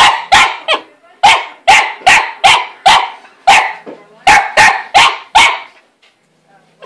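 Small long-haired dog barking repeatedly at a cat hiding in a cat-tree house: quick, sharp barks, two or three a second, stopping about five and a half seconds in.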